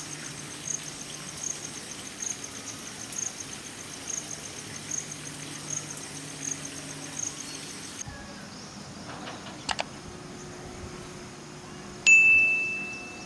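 A high chirp, likely an insect, repeats about every three-quarters of a second for the first eight seconds. Then come two quick clicks, and about twelve seconds in, a single bright bell ding that rings out and fades: a notification-bell sound effect.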